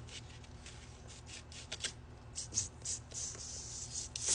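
Paper and cardboard rubbing and rustling as a vinyl record's jacket and sleeve are handled, in a series of short scrapes that come quicker and louder in the second half.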